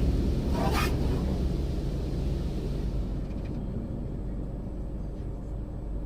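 Low, steady rumble of automatic car wash machinery that slowly fades, with a brief swish about a second in.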